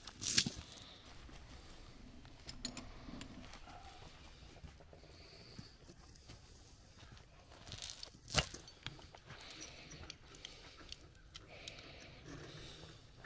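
Metal clinking and clanking, with a sharp loud clank just after the start and another about eight seconds in, and lighter clicks between.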